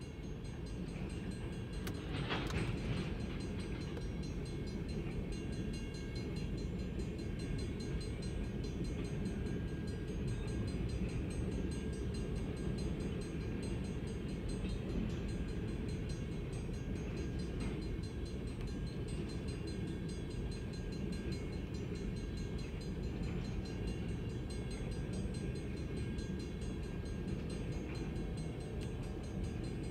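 Freight train of tank cars rolling past, a steady low rumble heard from inside a car's cabin.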